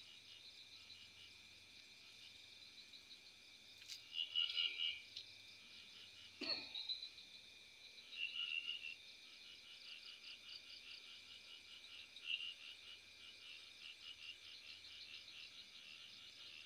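Faint night chorus of insects trilling in fast, even pulses, with louder calls standing out now and then. There is a sharp click about four seconds in and a short noise a couple of seconds later.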